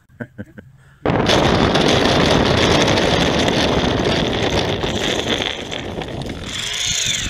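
Loud rushing and rattling noise from the Sky Hunter RC plane on the ground, picked up by its own onboard camera: wind, motor and the landing wheels on rough dirt. It starts suddenly about a second in and eases a little toward the end, after a few short clicks at the start.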